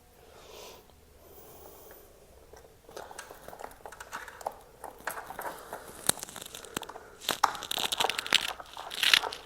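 Hands working plastic parts and wiring on a motorcycle as wires are pulled off. It starts quiet, then irregular clicks, crinkling and rustling grow busier and louder from about three seconds in, loudest near the end.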